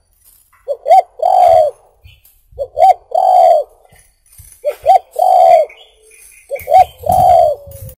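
Spotted dove cooing: four repeated phrases about two seconds apart, each two short rising notes followed by a longer drawn-out coo.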